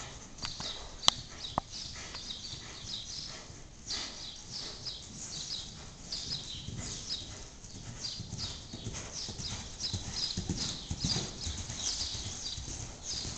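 Hoofbeats of a Gypsy Vanner gelding trotting under a rider on arena sand: dull, uneven thuds. Two sharp clicks come about a second in.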